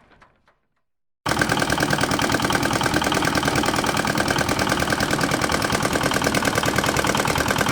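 Tractor engine running steadily with a rapid, even pulsing. It cuts in suddenly about a second in, after the tail of another engine sound fades out into a short silence.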